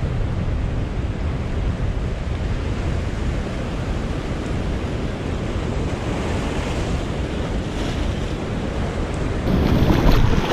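Ocean surf washing over a rocky reef shore, with steady wind rumbling on the microphone. Near the end, closer water sloshing and splashing over the rocks comes in louder and brighter.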